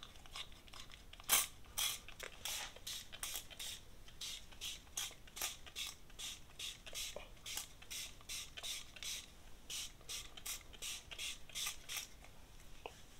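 Pump spray bottle of EPRES bond repair treatment spritzing a mist onto dry hair: short sprays in quick succession, about three a second, stopping shortly before the end.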